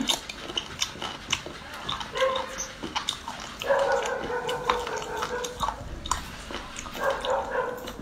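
Close-miked eating sounds: wet chewing and mouth clicks from raw seafood being eaten and dipped in soy sauce. A high, steady whine comes and goes over them, about two seconds in, from about four to five and a half seconds, and again near the end.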